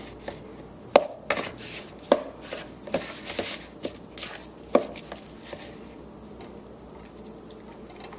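Kitchen utensils knocking and scraping against a dish as chicken thighs are coated in a spice mix: a few sharp knocks about one, two and five seconds in, with scraping between them, then quiet room sound.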